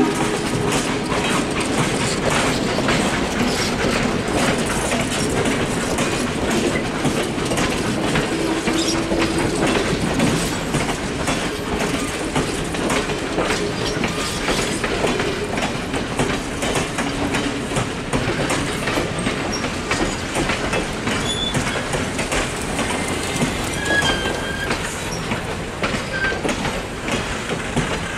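Steel-wheeled passenger coaches of a train rolling steadily past, wheels clicking over the rail joints, with a few brief wheel squeals.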